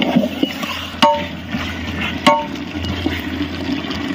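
Metal ladle stirring chicken pieces in thick, wet masala in a large aluminium pot, with a wet scraping, squelching sound. Twice, about a second in and a little after two seconds, the ladle clinks against the pot and the pot rings briefly.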